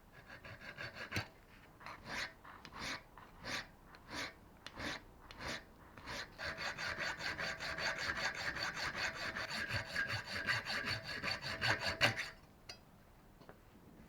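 Hand-cutting a screwdriver slot into a small turned metal part: separate scraping strokes at first, then fast steady strokes with a ringing metallic tone for about six seconds, stopping abruptly near the end.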